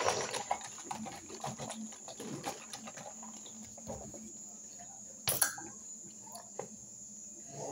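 Milky homemade juice sloshing inside a plastic bottle as it is shaken hard, with a sharp knock about five seconds in.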